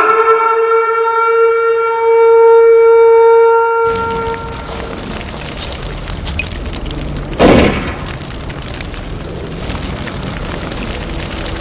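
A long, steady horn-like blast on one pitch, cutting off abruptly after about four seconds into a continuous low rumble, with a single loud short blast about seven and a half seconds in.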